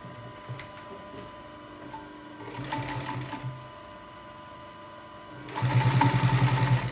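Ivomaq industrial sewing machine stitching through two pieces of leather: a short, quieter run of stitches about two and a half seconds in, then a louder, fast run of rapid needle strokes near the end.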